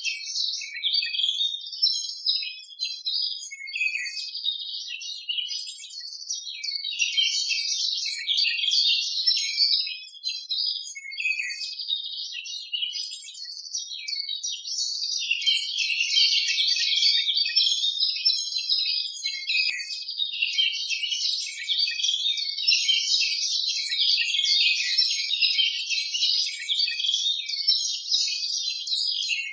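Many small birds chirping and twittering at once, a dense high-pitched chorus that carries on without a break.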